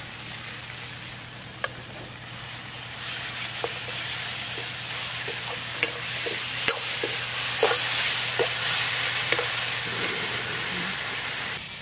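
Onion, tomato and freshly added ginger-garlic paste sizzling in hot oil in an aluminium kadai, stirred and scraped with a steel ladle that clinks sharply against the pan a few times.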